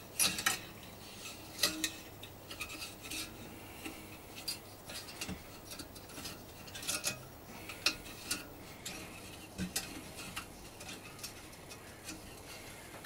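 Long-nose pliers and thin frame wire giving faint, irregular metallic clicks and clinks as the wire is wound round and pulled tight at the corner of a wooden Dadant beehive frame.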